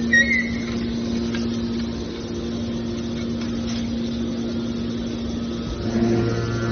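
Hydraulic scrap-metal baler running with a steady hum from its pump motor; near the end the hum gets louder and a deeper tone joins in.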